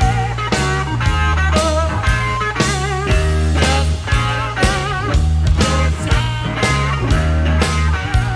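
Electric blues-rock band playing an instrumental passage: a lead electric guitar plays wavering, bent notes over a steady bass line and regular drum hits.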